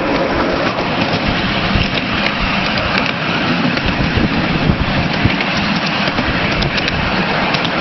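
A miniature railway train in motion, heard from a passenger car: a steady rumble of the wheels running on the track, with scattered sharp clicks and clatter.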